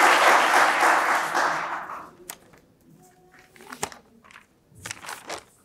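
Audience applause fading out over about two seconds, then a few faint scattered clicks and knocks.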